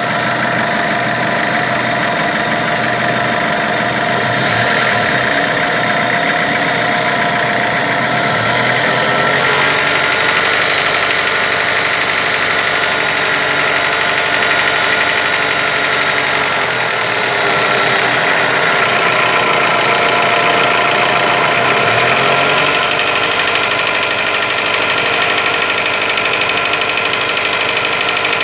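Toyota 4S-FE inline-four petrol engine idling and being revved up and let back down a couple of times, with a knock from the engine that shows up once it is above about 1500 rpm.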